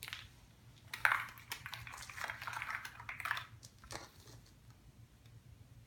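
Hands handling a toy surprise egg and its wrapping: a sharp click about a second in, then a few seconds of rustling and light clattering, with another click near four seconds.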